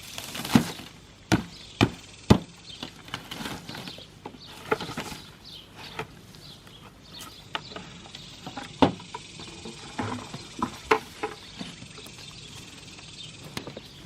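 Potatoes being dug out of a bucket of hard, dry soil: a run of sharp knocks, four in the first two and a half seconds and a few more later, with scraping and rustling of dirt between.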